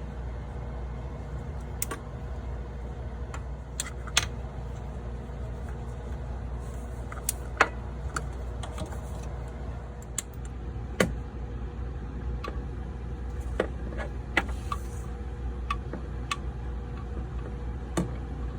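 Scattered sharp metallic clicks and clinks of hand tools on engine bolts as the T45 timing chain guide bolts are torqued, over a steady low hum.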